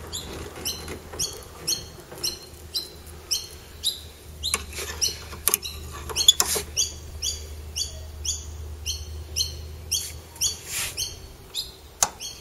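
A small bird repeating a short, high chirp that drops in pitch, about twice a second. A few sharp clicks and knocks from the metal side-stay fittings being handled sound over it, the loudest about six seconds in.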